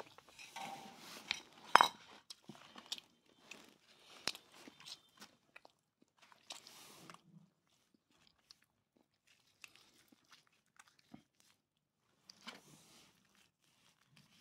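A knife cutting and scraping through roast duck with crisp skin in a styrofoam box: irregular crunches, scrapes and clicks, the sharpest about two seconds in, thinning out after the first seven seconds with one more crackly patch near the end.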